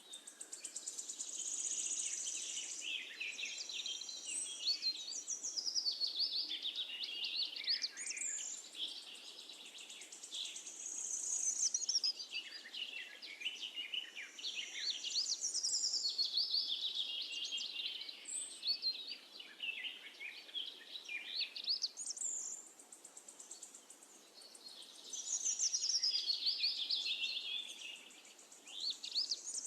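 Birdsong: long phrases of rapid, high chirps and warbles, a few seconds each, with short pauses between.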